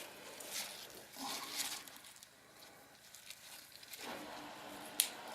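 Faint rustling and crinkling of raspberry canes and leaves being handled as a berry is picked, with a sharp click about five seconds in.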